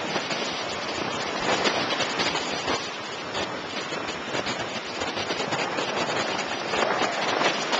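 Steady rushing noise of lake waves washing onto the beach, mixed with wind.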